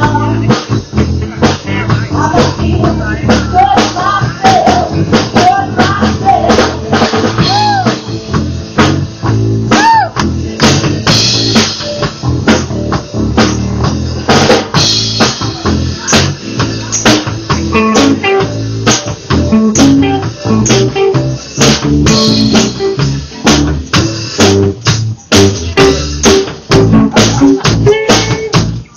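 Live rock band playing: electric guitars, electric bass and a drum kit with steady drum hits, with a woman singing over it in the first ten seconds or so before the band carries on instrumentally.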